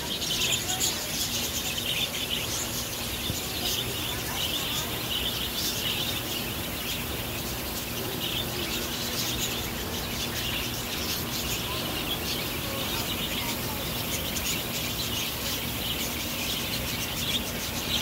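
A flock of budgerigars chirping and chattering continuously, with many short quick calls overlapping.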